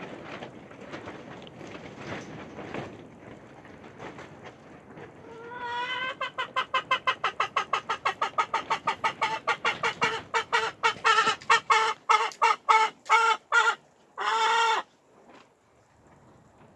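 An animal calling, most likely a bird: a rising note, then a fast run of short pitched calls, about five a second, that slows and ends in one longer call. Before it there is a low rustling noise.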